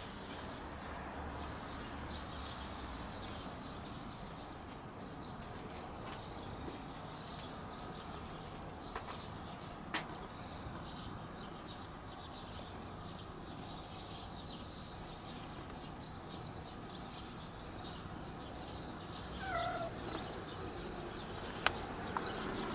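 Quiet outdoor ambience with a steady hiss and faint high chirps, and a single short, rising cat meow about twenty seconds in. A couple of sharp clicks, one near the middle and one near the end.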